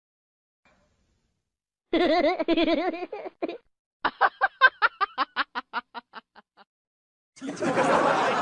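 A wavering laugh, then a run of rapid ha-ha bursts, about five a second, that fades away. Near the end comes a sudden burst of crowd noise from wedding guests as bridesmaids tumble while catching the bouquet.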